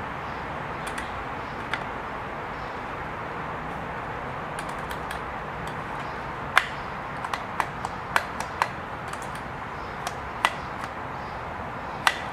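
Scattered small clicks and taps from parts being handled and fitted in the lower mechanism of a Singer Stylist 522 sewing machine. They come more often in the second half, over a steady background hiss.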